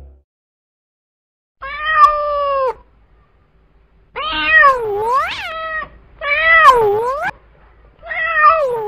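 Kitten meowing: four drawn-out meows separated by silent gaps, each sliding down and back up in pitch.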